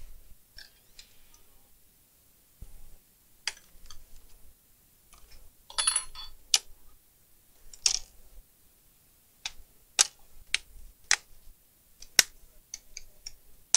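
Plastic clicks and snaps from a laptop's screen bezel and its clips being handled and pried, irregular, with a longer crackling scrape about six seconds in and a quicker run of clicks near the end.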